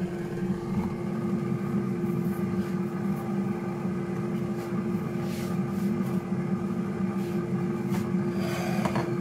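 Air fryer running at baking temperature: a steady fan hum with one constant tone over a low whir, with a few light knocks near the end.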